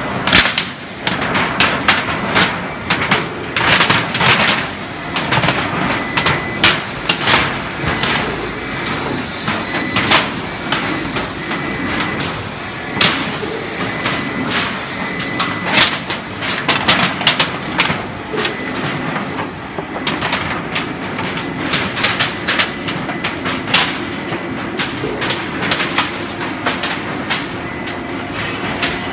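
Roll-forming machine running, its ridged steel rollers pressing coated steel sheet into corrugated roofing, with a steady mechanical noise broken by frequent irregular metallic clanks and rattles and a faint steady whine.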